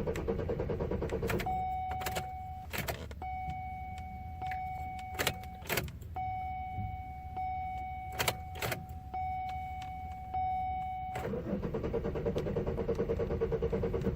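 2002 Chevy Malibu engine cranking on its starter without firing, a pulsing whir that stops after about a second and a half and starts again at about eleven seconds: a no-start, even with a jump boost. Between the two cranks a steady electronic tone sounds, with a few sharp clicks.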